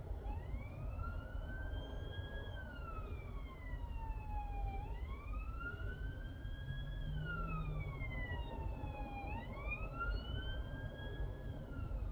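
UK police car siren on the wail setting, rising and falling slowly about every four and a half seconds, over a steady low rumble of traffic.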